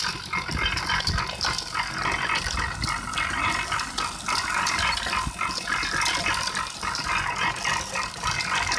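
Belt-driven sugarcane crusher running with a steady rattle from its gears and rollers as cane stalks are fed in and crushed.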